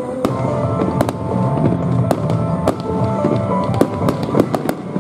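Aerial firework shells bursting in quick succession, a sharp bang roughly every half second, with music of held notes playing alongside.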